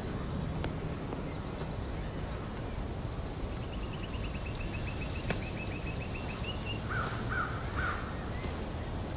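Outdoor ambience with birds calling over a steady low rumble. There are high chirps in the first couple of seconds, a fast trill of repeated notes through the middle, and three short lower calls near the end. Two sharp clicks stand out, one early and one about halfway.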